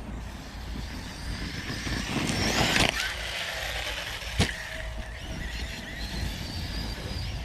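Electric 6S RC basher's brushless motor whining as it drives, rising and falling in pitch with the throttle. There is a loud rush of noise about two and a half seconds in and a single sharp knock about four and a half seconds in.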